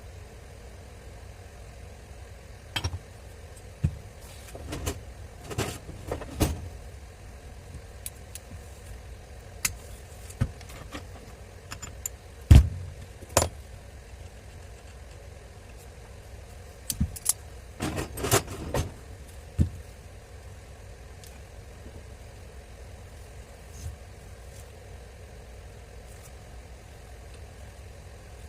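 Hand tools and metal grinder parts being handled during a repair: scattered clicks, clinks and knocks, with the loudest knock about twelve seconds in and a quick cluster of clinks around eighteen seconds.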